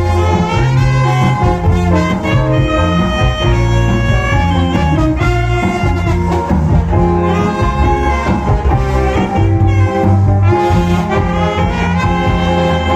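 Cha-cha dance music with brass, played loud through a large rented sound system, with a heavy steady bass.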